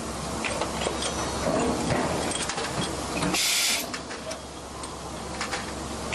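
Cold forging machine running in production, a steady mechanical din with scattered clicks and knocks over a low hum, and a hiss about half a second long roughly halfway through.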